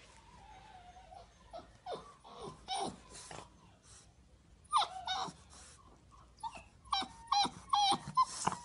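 Dogue de Bordeaux puppy whimpering: a drawn-out wavering whine at first, then short falling whines and yips that come thick and loud near the end.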